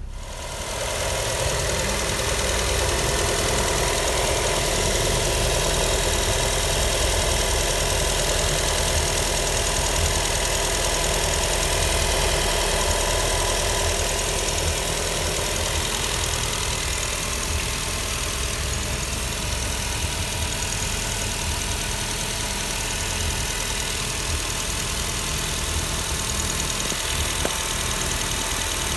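Nissan Almera's air-con condenser fan and engine bay running, a steady mechanical running noise that comes up over the first second or two and then holds. It is the noise of a spoiled condenser fan motor.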